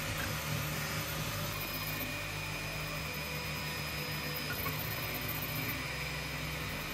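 TwoTrees SK1 CoreXY 3D printer at work on a print: a steady whir of its cooling fans and motors, with a few faint steady high tones over it.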